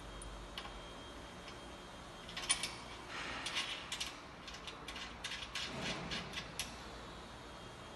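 Sharp clicks and rattles of an air hose's metal quick-connect plug being worked into its fitting on a vibratory bowl feeder, a run of them lasting about four seconds starting a couple of seconds in.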